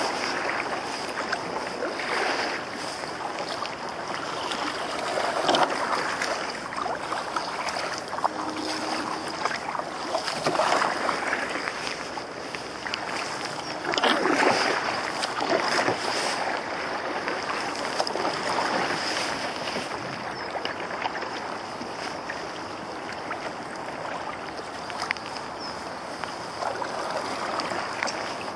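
Choppy river water sloshing and splashing against the hull of an open canoe as it is paddled, swelling with the strokes every few seconds, loudest about halfway through.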